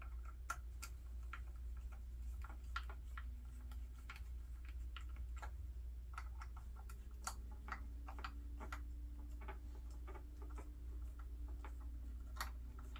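Scattered light clicks and taps of a shotgun butt plate and its screws being handled and fitted back onto the wooden stock, over a low steady hum.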